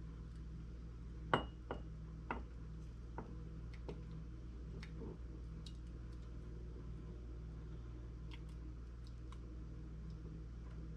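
Skillet and spatula clinking against the rim of a small glass jar as hot sauce is scraped into it: a few sharp clinks between about one and four seconds in, the first the loudest with a short ring, then only faint ticks, over a steady low hum.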